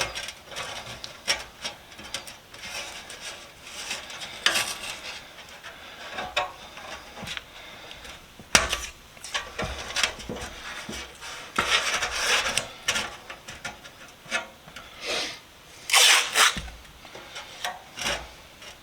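Masking tape being pulled off the roll, torn and rubbed down on a metal toolbox: irregular short rasping strokes and clicks, with a few longer, louder rasps.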